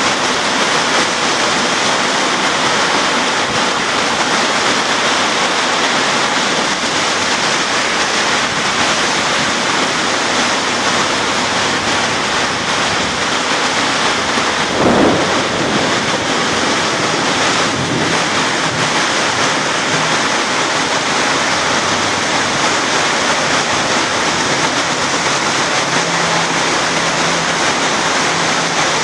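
Heavy rain pouring steadily, a dense hiss of downpour on the street and roofs. A brief louder swell comes about halfway through.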